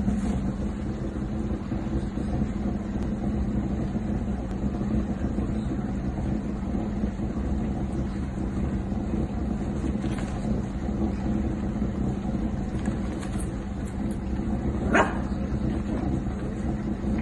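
A steady low droning hum throughout, with one short puppy bark near the end.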